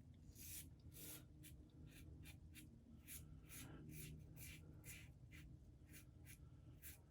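Faint, short scraping strokes of a Razorock Eco safety razor cutting lathered stubble against the grain, about three strokes a second.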